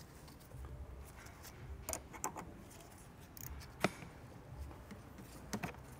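Faint metallic clicks of a 13 mm wrench on an air-line tool, loosening the air line fitting on top of an Airmatic air strut; a few separate clicks, the sharpest about four seconds in.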